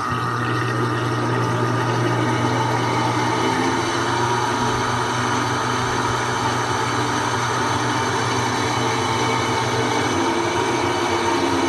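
Electrolux 10 kg washing machine running its spin cycle, a loud, steady hum with higher whining tones over it: noise from a worn motor bearing.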